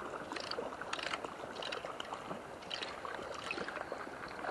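River current running and gurgling, with many small splashes of moving water.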